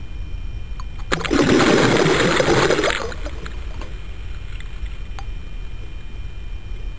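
A pike striking a floating topwater plug: one loud splash at the surface about a second in, lasting about two seconds.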